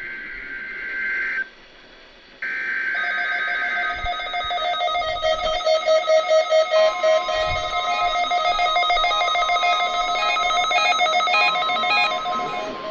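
NOAA Weather Radio test alert: two buzzing, warbling bursts of SAME digital header data, the second starting about two and a half seconds in. Weather radio receivers then set off layered electronic beeping and chiming alert tones, and a steady tone joins about seven seconds in.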